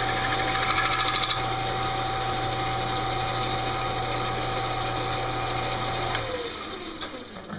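Metal lathe running with its faceplate spinning, a steel crankshaft mounted between centers; about a second in there is a brief fast rattle. About six seconds in the lathe is switched off: the motor hum stops and the spindle coasts down with a falling whine.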